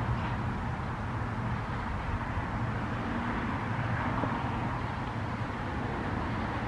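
Steady outdoor background noise: an even low rumble with a hiss over it and no distinct events.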